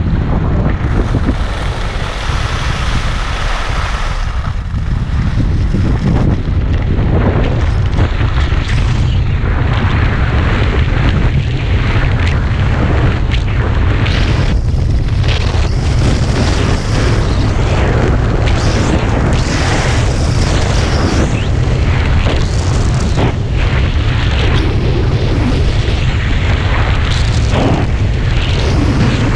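Heavy wind buffeting on the camera microphone while riding down a ski slope at speed: a loud, steady, deep rumble with a rough hiss of air and snow over it.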